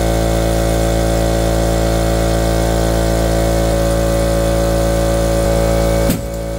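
Air compressor running steadily while it inflates a tractor tire through a coiled air hose to seat the bead. About six seconds in there is a click and the sound drops.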